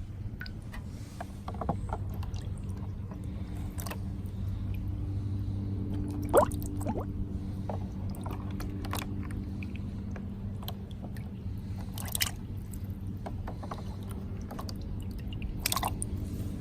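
Light plastic clicks and knocks of toy cars being handled, scattered irregularly over a steady low hum.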